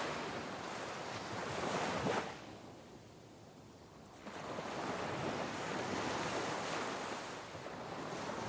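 Steady rushing of water, dropping away for about two seconds near the middle before coming back.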